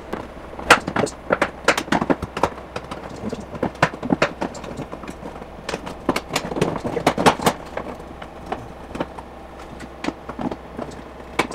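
Irregular clicks and knocks of plastic car trim and hand tools being worked at and pried as a front-end part is pulled loose, busiest about a second in and again about six seconds in.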